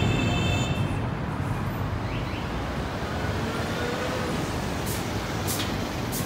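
City street traffic noise: a steady rumble of cars passing along the road.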